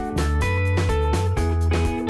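Background music: guitar over steady bass notes and a drum beat.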